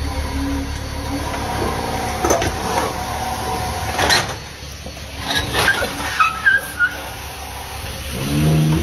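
Tow truck's engine running low under the wheel-lift as it raises an SUV, with several sharp metal knocks and short squeaky creaks as the lifted SUV tips over sideways. A louder pitched sound swells near the end.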